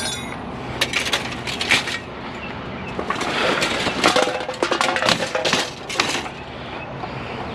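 Scrap metal and debris from a torn-open bag being handled and sorted: a run of irregular metallic clinks and knocks, with rustling and cracking in between.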